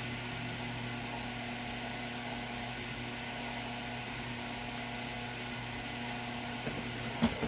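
Steady electric machine hum, level and unchanging, with two short knocks near the end.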